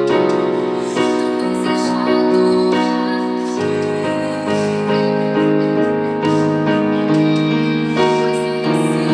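Electronic keyboard playing praise and worship music on a piano voice: held chords that change about once a second.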